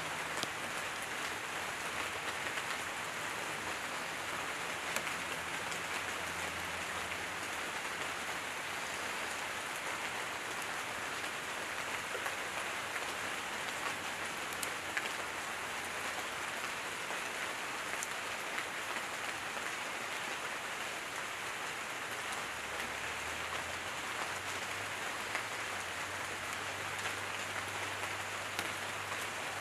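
Light, steady rain falling on leaves and conifer foliage: an even hiss dotted with sharp ticks of single drops.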